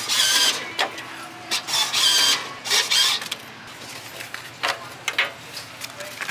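A lottery scratch-off ticket vending machine feeding out and dispensing a ticket: three short runs of mechanical whirring in the first three seconds, then lighter clicks and rattles from the mechanism and tray.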